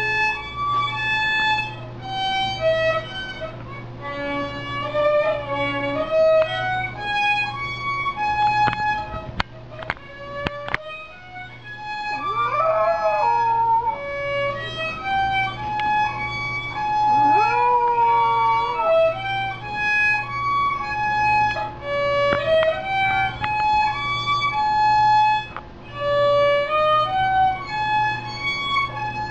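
Violin music playing a slow melody, with a French bulldog puppy howling along twice in rising and falling wails, about twelve and seventeen seconds in.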